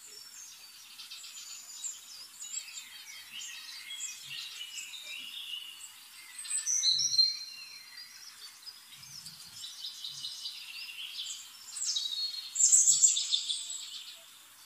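Potato pieces deep-frying in hot oil: a steady crackling sizzle, louder about seven seconds in and again near the end.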